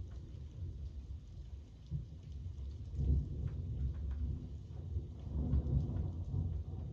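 Rain falling, with scattered drops ticking, over a low rumble of thunder that swells about three seconds in and again near the end.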